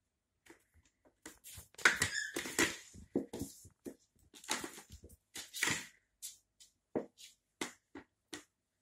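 A playing cat scrambling and pouncing on a laminate floor: claws skittering and paws thumping in a dense flurry about two seconds in, then a few separate taps near the end.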